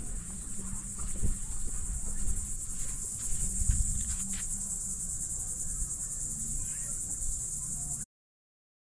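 A steady, high-pitched chorus of insects trilling, with low rumbling bumps underneath. The sound cuts off suddenly to silence about eight seconds in.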